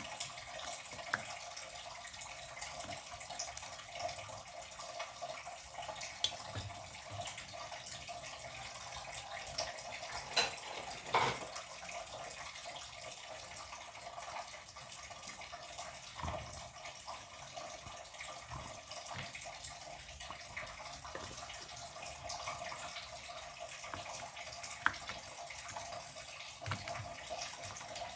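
Tap water running steadily into a kitchen sink, with a few short, sharp knocks and clinks.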